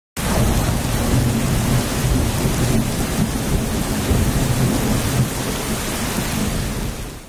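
Thunderstorm sound effect: steady heavy rain with a low rumble of thunder underneath. It starts abruptly and cuts off near the end.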